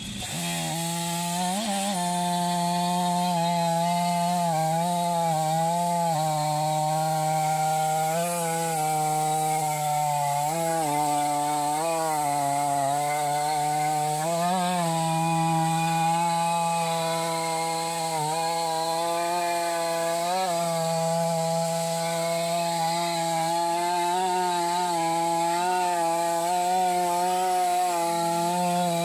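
Stihl 500i, a fuel-injected two-stroke chainsaw, running at full throttle in an Alaska chainsaw mill, ripping lengthwise through a big leaf maple log. A steady, high engine note that wavers slightly in pitch now and then.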